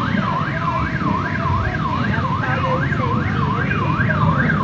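A siren sounding a fast up-and-down yelp, about three sweeps a second, over a steady low background rumble.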